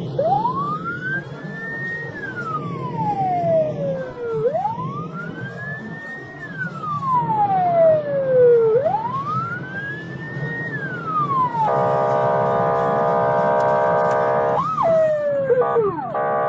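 Police siren wailing, rising and falling three times about four seconds apart, then switching to a steady blaring horn tone for about three seconds, a short whoop, and the horn tone again near the end, over the steady rumble of the car and road.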